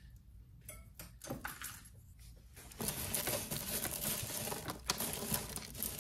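Beaded costume necklaces tangled together clicking and rustling as fingers pick at the knot. A few separate clicks at first, then from about three seconds in a steady run of small clicks and rustling.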